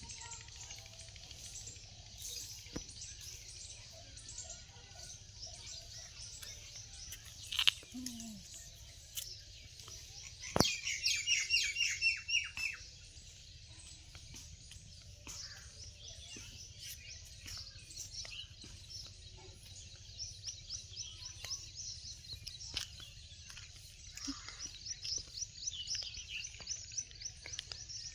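Several songbirds chirping and calling, with a loud run of rapid repeated notes about ten seconds in and more quick trills near the end.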